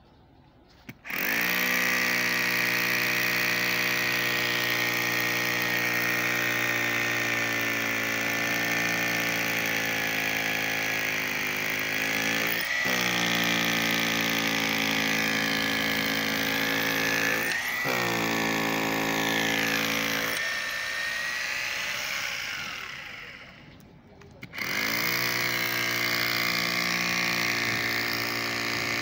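Power drill boring into a concrete wall: its motor runs at a steady high pitch, dips briefly twice, stops about twenty seconds in and starts again a few seconds later.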